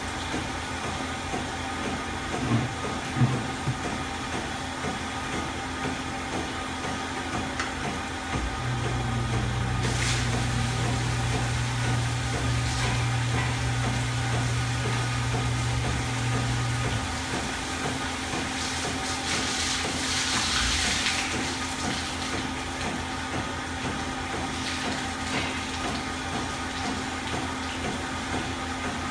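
Milking parlor machinery running: a steady hum with a few knocks about three seconds in. A deeper hum switches on about eight seconds in and stops about nine seconds later, and a stretch of hissing air comes near the twenty-second mark.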